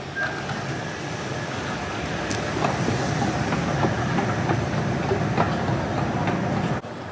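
Underground metro rumble while riding an escalator down into the station: a steady rumbling noise with scattered clicks that slowly grows louder. Near the end it cuts off abruptly to a quieter, steadier low hum.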